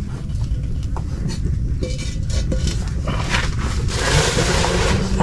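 Scraping and light knocks of cooking pots and utensils over a steady low rumble, with a short hiss about four seconds in.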